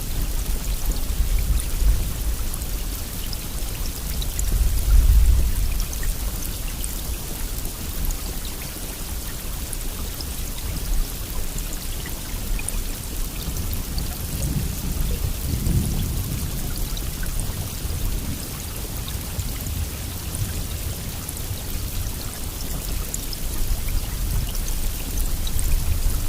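Steady heavy rain, a continuous hiss of falling drops with fine drop patter. Low rumbles of thunder swell about five seconds in and again around fifteen seconds.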